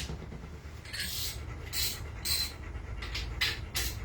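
A dog panting: short, hissy breaths at an uneven pace, several of them.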